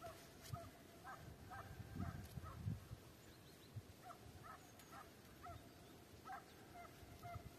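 Faint, distant Estonian hound giving tongue: a string of short barks at the same pitch, about two or three a second, the sound of the hound running a hare on scent. A few low thumps come about two seconds in.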